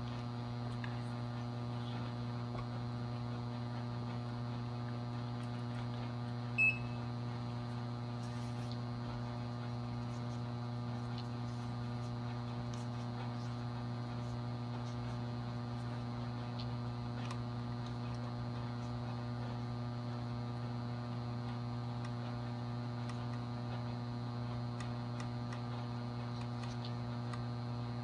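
Steady low electrical hum of a 400 W mercury vapor HX autotransformer ballast powering two 150 W high pressure sodium lamps in series, with a brief high beep about seven seconds in.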